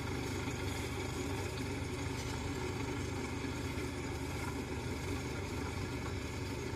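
Engine of a tracked rice-hauling farm cart idling with a steady, even hum.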